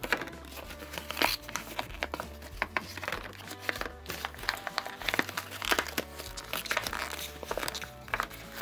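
A folded sheet of A4 paper crinkling and crackling as hands press and shape it into a paper boat, in quick, irregular rustles.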